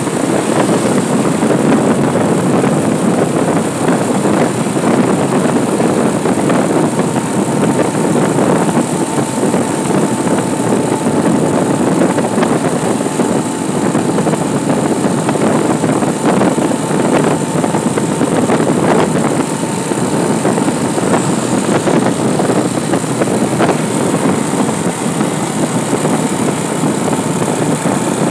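Motorcycle riding along a paved road: steady engine and road noise mixed with wind rush on the microphone, with a faint steady whine through the middle.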